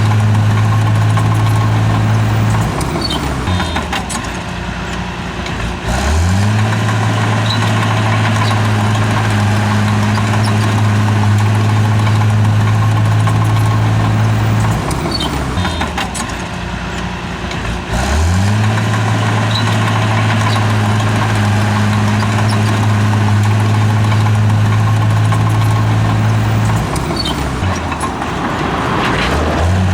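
Heavy diesel engine of a bulldozer running at steady high revs. Three times, about every twelve seconds, its pitch and loudness dip for a few seconds and then climb back up.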